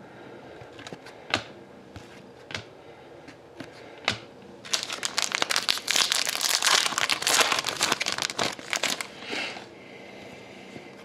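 A few light clicks of cards being handled, then from about five seconds in about four seconds of loud crinkling as a hockey-card pack wrapper is torn open and crumpled.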